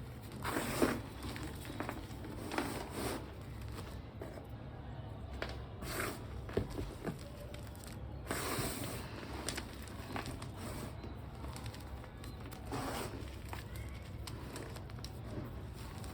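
Reformed gym chalk blocks crunching and crumbling as they are crushed, in about five separate crunches with small crackles between them, over a steady low hum.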